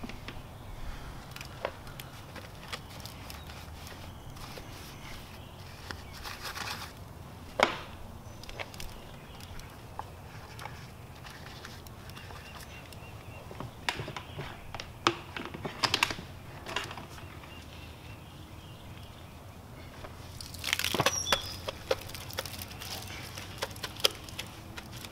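Wash mitt scrubbing a soapy alloy wheel by hand: wet rubbing and crackling of foam, with scattered sharp clicks and taps and a few louder stretches of scrubbing.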